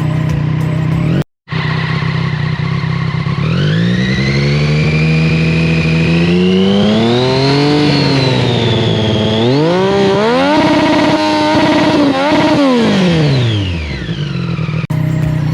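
Triumph Street Triple's three-cylinder engine with an aftermarket SC Project exhaust, idling and then revved: one long rise in pitch held for a few seconds and eased off, then several quick blips of the throttle before it settles back to idle.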